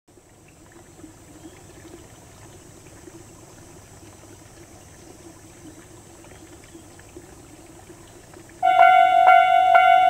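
Faint steady outdoor background, then, about 8.5 seconds in, a Tobu-type electronic railway level-crossing alarm starts ringing loudly, a clanging bell-like tone struck about twice a second: the crossing is warning of an approaching train.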